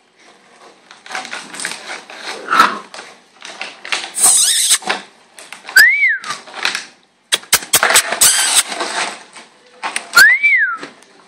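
Two short, high whistle-like notes, each rising and then falling, about four seconds apart, with bursts of scuffling and rustling between them.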